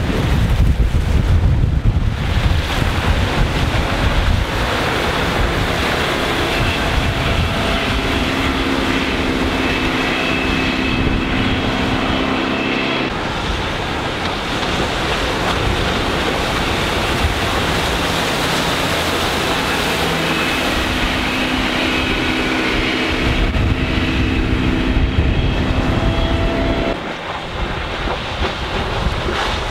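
MerCruiser 5.0 MPI V8 sterndrive engine of a sports cruiser running at speed, a steady engine tone over the rush of water off the hull and wind buffeting the microphone. The engine tone cuts off abruptly about 13 seconds in and again near the end.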